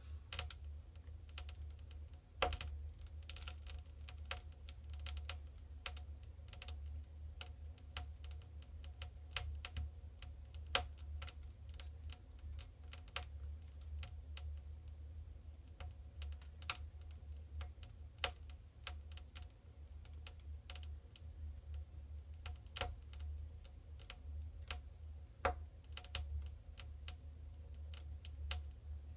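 Log fire burning, crackling with irregular sharp pops, a few of them louder than the rest, over a steady low hum.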